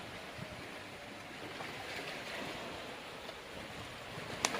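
Steady wash of sea surf and wind, with one short sharp click near the end.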